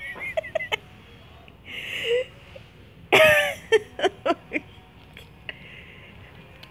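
Cat rummaging inside a leather purse, rustling and shifting the things in it, with a few short bursts of a person's laughter, the loudest about three seconds in.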